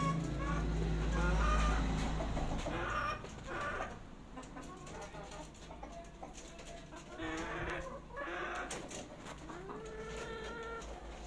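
Silkie chickens clucking and calling in several short bursts, with a low rumble over the first few seconds.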